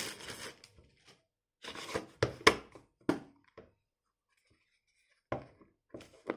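Packaging being handled: plastic wrap crinkling briefly at the start, then short knocks and scrapes as a cardboard box is opened and a hard black plastic case is slid out and turned over, with a still stretch in the middle and a few more knocks near the end.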